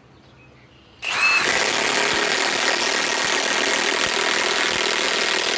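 Milwaukee M18 Fuel 2766-20 cordless high-torque impact wrench hammering as it drives a 5-inch lag screw into wood. It starts suddenly about a second in and runs loud and steady.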